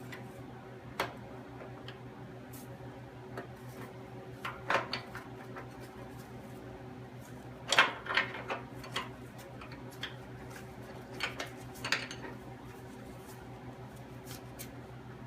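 Light metal clinks and taps of tools and parts being handled, a scattering of short sharp knocks with the loudest about eight seconds in and again near twelve seconds, over a steady low hum.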